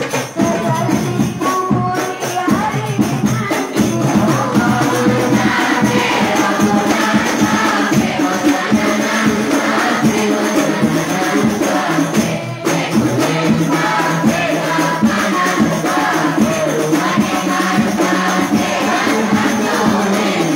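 Hadroh ensemble: a group of voices singing a devotional song together over rebana frame drums beating a steady, fast rhythm.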